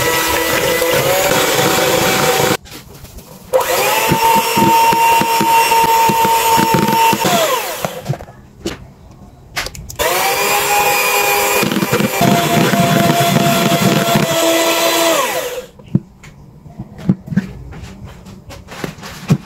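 Electric hand mixer whisking egg whites in a plastic bowl, beating them toward stiff peaks. The motor whines in three runs, winding up at the start of each and down at the end, its pitch stepping as the speed changes. A few scattered knocks near the end.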